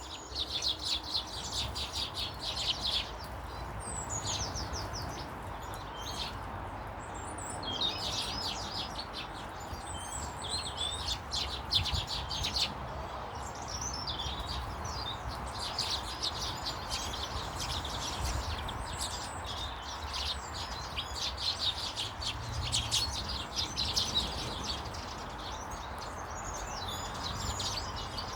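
Small birds chirping in repeated runs of rapid high notes, with short gaps between the runs, over a steady background hiss.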